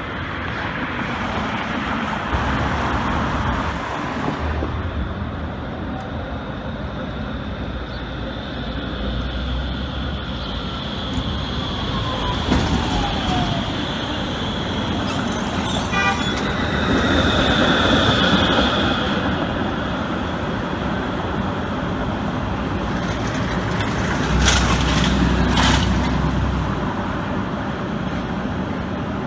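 SEPTA PCC trolley car running on its street tracks amid city traffic, with a high squeal for a few seconds around the middle and a few sharp knocks about five seconds from the end.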